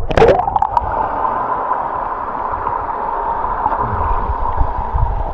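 A diver hits the sea with a sharp splash. The sound then turns to a steady, muffled underwater rush and bubbling as the camera is held beneath the surface.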